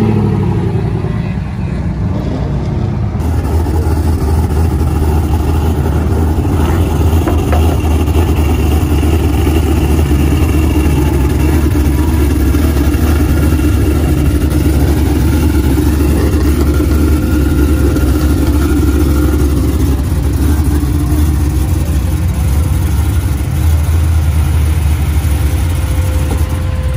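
Car engine running steadily with a deep, continuous low drone; near the end one tone drops in pitch as the engine slows.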